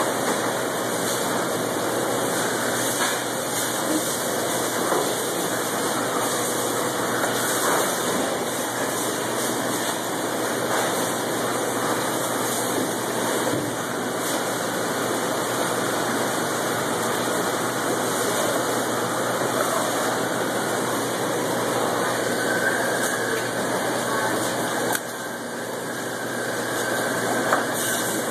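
Steady machinery noise of a fish-processing plant, an even din with a faint hum, running without a break.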